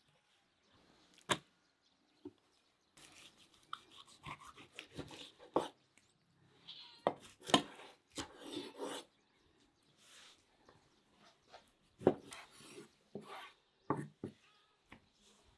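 A chef's knife cutting raw beef heart on a wooden cutting board: soft slicing and scraping sounds, with about four sharp knocks as the blade meets the board.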